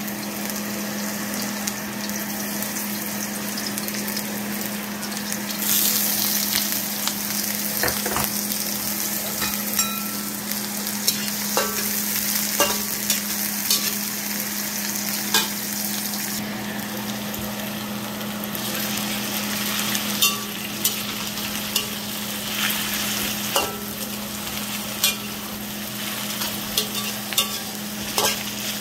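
Garlic, onions and chicken sizzling in hot oil in a metal wok as a spatula stirs them, with frequent short clicks and scrapes of the spatula against the pan. The sizzle grows louder about six seconds in and eases again past the middle, over a steady low hum.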